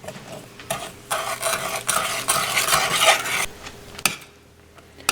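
A spoon stirring the butter, sugar, cocoa and milk mixture in a saucepan, scraping against the pan in a run of strokes for about three seconds, then a single sharp clack about four seconds in.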